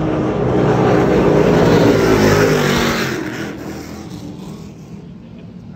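Two offshore racing powerboats passing at speed. Their engine drone and hull and water rush build to a peak about two seconds in, then fade away.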